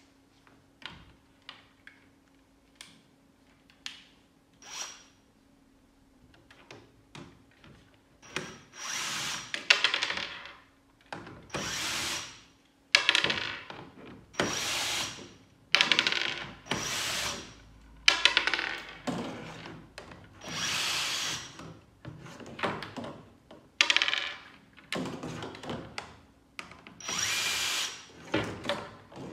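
Drill-driver running in short bursts of a second or two, backing M6 screws out of a 3D-printed plastic heat-exchanger housing. It starts after a few seconds of light handling clicks.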